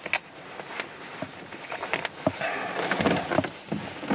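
Faint scattered clicks and small knocks with some rustling: handling noise in a glider cockpit.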